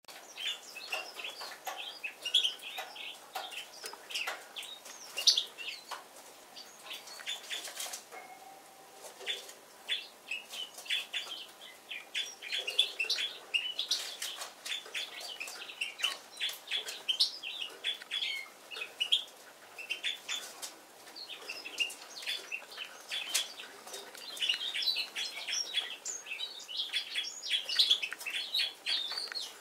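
Yellow-throated bunting warming up its song: runs of short, high chirping notes, repeated with brief pauses, with sharp clicks mixed in.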